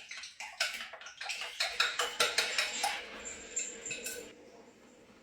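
Kitchen pots and utensils clattering, with a quick run of knocks and clinks, then a short hissing rush about three seconds in.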